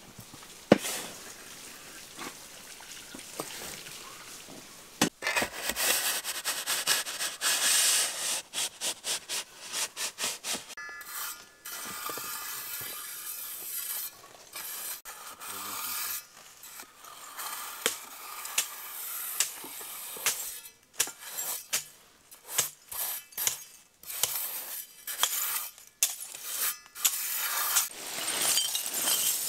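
A steel shovel and a hand trowel scraping through dry granular fill on a concrete slab: repeated gritty scrapes with sharp clinks of metal on grit and brick.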